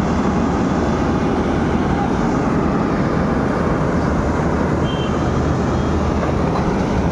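Cat 320D excavator's diesel engine running steadily under load as the machine climbs on its tracks onto a trailer.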